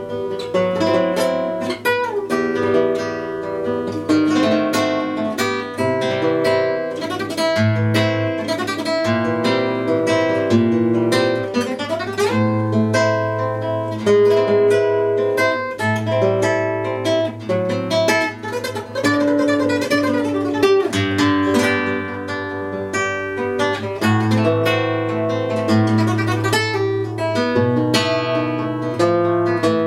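Instrumental music: a melody of plucked string notes over low notes held a few seconds each.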